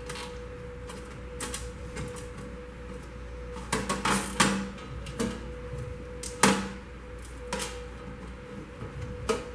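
Nylon zip tie being fastened around a pair of wires by gloved hands, heard as irregular sharp clicks and taps, with a quick cluster of clicks about four seconds in.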